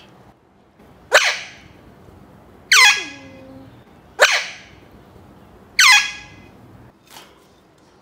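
Young Alexandrine parakeet giving four loud, harsh calls about a second and a half apart, each dropping sharply in pitch, then a faint short call near the end.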